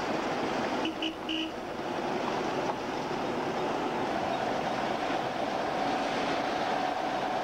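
Heavy cab-over lorry's diesel engine running as the loaded truck drives slowly past on a wet, slushy road, a steady rumble with a faint whine that grows stronger about halfway through. A few very short tones sound about a second in.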